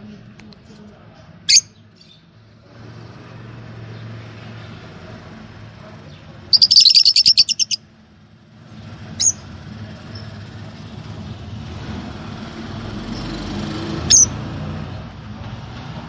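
Lovebirds calling: single sharp high chirps about a second and a half in, around nine seconds and near fourteen seconds, and the loudest sound, a rapid run of about ten high chirps, a little before halfway. Underneath is a steady low background that grows slowly louder.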